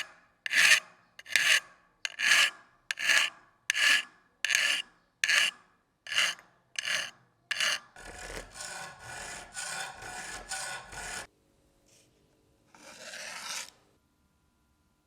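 A rusty steel knife blade being worked by hand with an abrasive, in slow, even strokes about one every 0.8 seconds. About eight seconds in these give way to quicker, quieter scrubbing strokes that stop after about three seconds, and one short rub follows.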